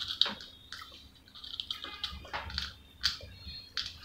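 Chewing of French fries: wet mouth sounds with many short, sharp clicks, along with fingers picking fries from a bowl.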